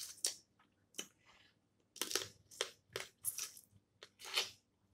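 Snow crab being cracked and eaten: a run of short, irregular crunching and cracking sounds of shell and chewing.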